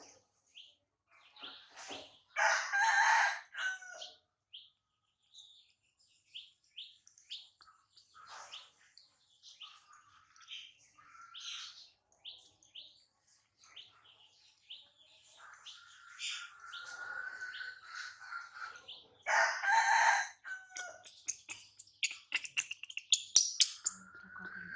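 A rooster crowing twice, one crow a few seconds in and another near the end. Short high chirps are scattered between the crows.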